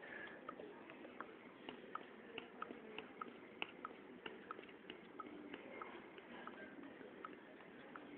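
Faint, light ticking, about two to three ticks a second, slightly uneven, over low background hiss.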